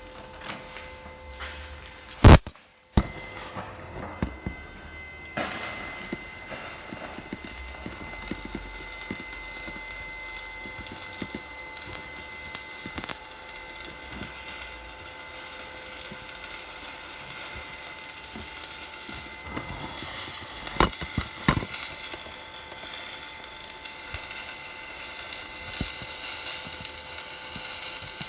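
Electric arc welding: after a sharp click, the arc catches about five seconds in and crackles steadily, with a faint steady whine underneath.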